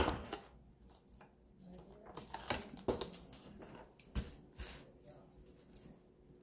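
Plastic wrap rustling and crinkling as hands lay it out and smooth it flat on a stainless steel counter, with a few short sharp crackles.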